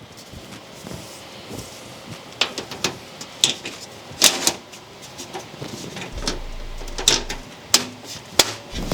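Panels of a Lian Li O11 Dynamic Evo PC case being handled and fitted back on: a series of sharp clicks and knocks, irregularly spaced.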